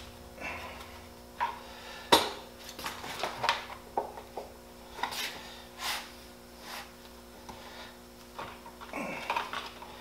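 Small decorative cover being handled and pushed down over an air compressor's regulator fittings: an irregular series of light clicks, knocks and rubs, the loudest about two seconds in.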